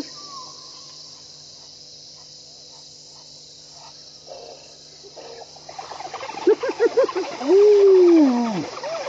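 Spotted hyenas and African wild dogs calling at each other in a standoff, over a steady chirring of crickets. From about six seconds in there is a burst of rapid, repeated calls and high twittering, and near the end comes one long, loud call that falls in pitch.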